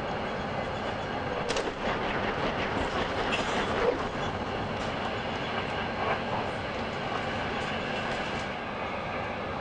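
Steady rumble and hiss of a Frecciarossa high-speed train at speed, heard from inside the passenger car. About one and a half seconds in, a train passing the other way brings a louder rush with several sharp clicks that dies back over the next few seconds.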